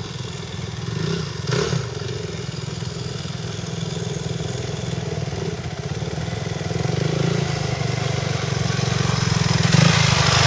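Dirt bike engines running as several off-road motorcycles ride over rough hillside ground, growing louder near the end.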